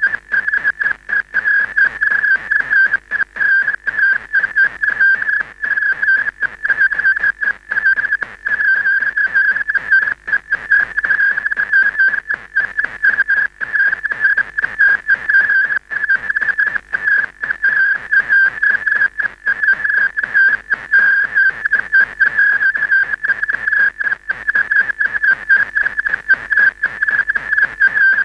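A steady, whistle-like electronic tone with fainter higher overtones, wavering slightly in pitch and cut by many brief dropouts: signal noise on the soundtrack of an old videotape after the recorded programme has ended.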